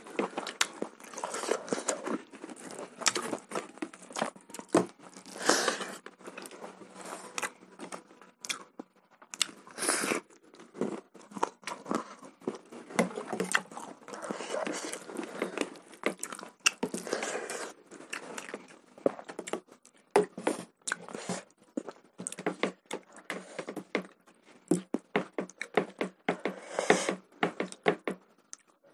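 Close-miked eating sounds: chewing and lip-smacking on chicken curry and rice eaten by hand, made up of many short, irregular wet clicks, with the odd scrape of a metal spoon in the curry pot.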